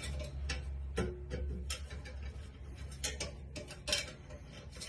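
Freshly built 20-inch wheel spinning in a truing stand, its rim ticking against the stand's gauge, about three light clicks a second. The ticks come from the rim seam catching the gauge as the wheel comes round, which is normal at this stage of rounding the wheel.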